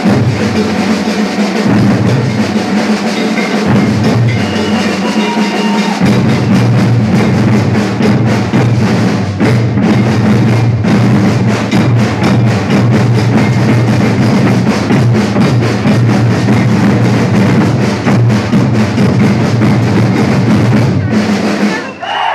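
Maracatu drum ensemble playing: deep alfaia bass drums with snare drums in a fast, dense rhythm, stopping together abruptly near the end.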